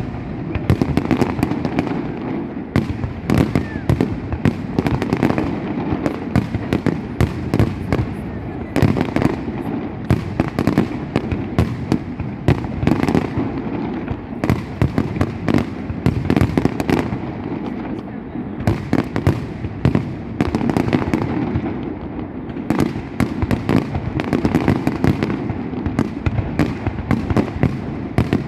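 Large fireworks display: a continuous, dense barrage of sharp bangs and crackles over a steady rumble, with no let-up.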